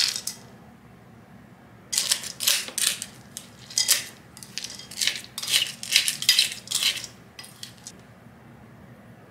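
Puppy kibble stirred with a spoon in a ceramic bowl: about a dozen rattling, clinking strokes from about two seconds in until near the end. At the very start, the last of the kibble pouring into the bowl.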